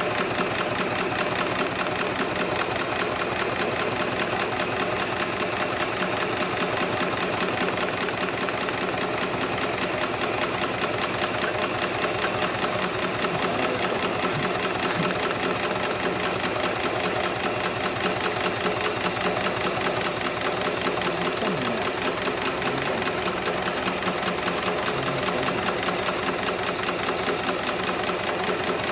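HIGHTEX 7273PLK automatic pattern sewing machine stitching heavy camouflage belt webbing: a rapid, even needle clatter that runs on without pause, with a steady high whine above it.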